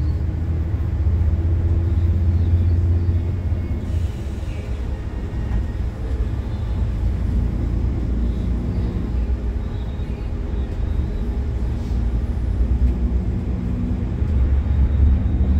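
Iveco bus engine running under way, heard from inside the driver's cab as a steady low drone. The deep rumble eases about four seconds in and builds again near the end.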